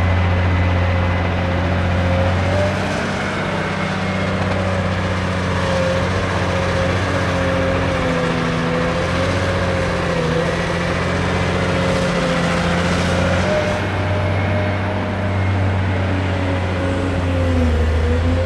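Cat 385C LME excavator's diesel engine (a Cat C18) running steadily, a continuous drone with a high whine that wavers slightly in pitch.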